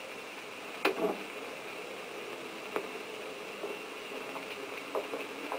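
Quiet steady hiss from an old film soundtrack, with a few faint knocks. A sharper one comes about a second in, and the later ones fall at a walking pace, footsteps on a hard floor.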